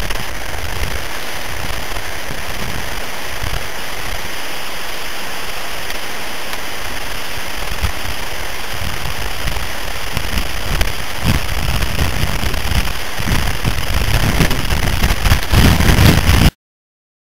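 Steady hissing noise on a body-worn camera's microphone, with low rumbling buffets growing over the last few seconds; the sound cuts off suddenly near the end.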